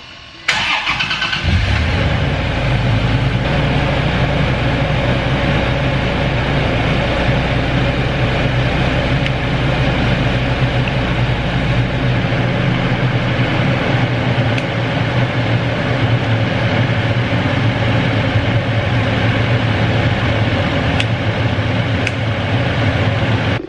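Toyota Tacoma pickup engine started up, catching about a second in and then idling steadily.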